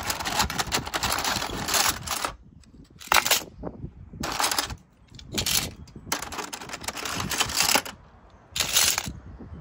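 Scallop shells clattering against each other and the clear plastic bin as they are grabbed and rummaged by the handful. The clatter comes in several short bursts with brief pauses between them.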